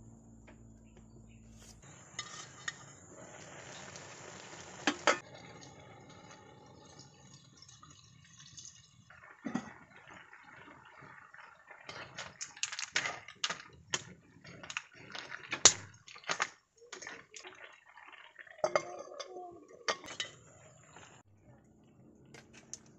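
A metal ladle scraping and clinking against a cooking pot, stirring bagungon snail shells and taro in coconut milk, many sharp knocks in irregular runs, busiest in the second half.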